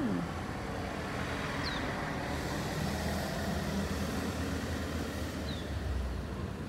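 Road traffic: a passing vehicle's rumble that swells through the middle and eases off near the end.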